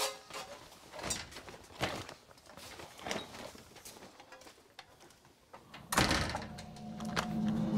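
A few footsteps, then a heavy front door with a wrought-iron grille shut firmly with one loud thud about six seconds in.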